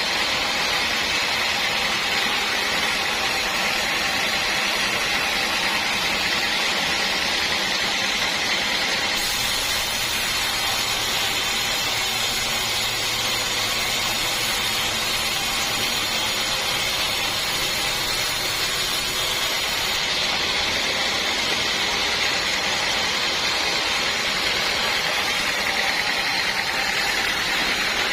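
Sawmill saw running steadily through teak wood, a continuous high hissing whine. It turns brighter and fuller for about ten seconds partway through, then settles back.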